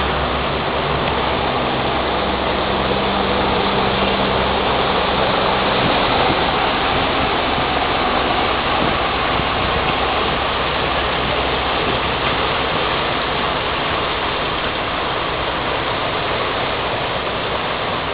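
Stormwater runoff rushing across a flooded street, a steady rushing noise. A vehicle engine runs low underneath during the first few seconds as a car wades through the water.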